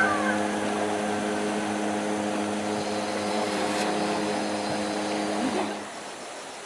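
Small engine running steadily with an even hum, which stops about six seconds in. A light splash comes about four seconds in as a thrown cast net lands on the river.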